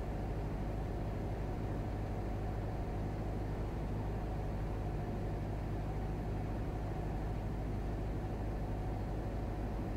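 Steady cabin drone of a Cessna 172 in a glide, its four-cylinder engine throttled back to idle for a simulated engine failure. It stays even, with no change in power.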